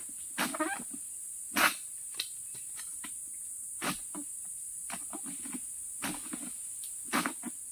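Long-poled harvesting sickle (egrek) knocking and scraping against an oil palm's frond bases in irregular strokes, the loudest about one and a half seconds in. A steady high insect drone runs under it.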